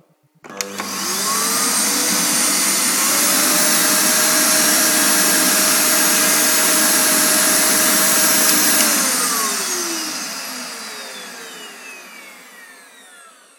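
A 1900-watt vacuum cleaner is switched on with a click about half a second in. Its motor whines up to speed and runs steadily. About nine seconds in it is switched off and spins down with a falling whine. It runs without trouble on the power inverter's supply.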